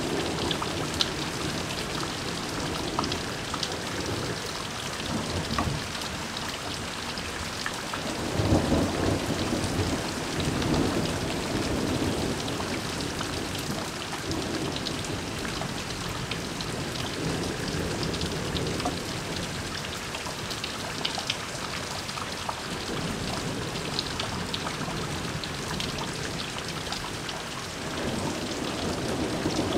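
Heavy rain falling steadily in a thunderstorm, with rolls of thunder rumbling low under it: the loudest begins about eight seconds in, with further rolls later and near the end.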